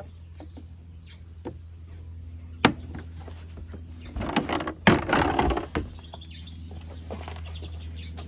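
Range Rover L322's carpeted boot floor panel being handled and pulled out of the boot: a sharp click a bit under three seconds in, then scraping with a loud knock around five seconds in as the board comes free.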